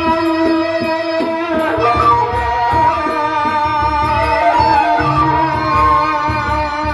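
Sasak gendang beleq gamelan playing live: large drums beat steadily under a sustained, wavering melody, with regular bright cymbal strikes. A male vocalist sings through a microphone over the ensemble.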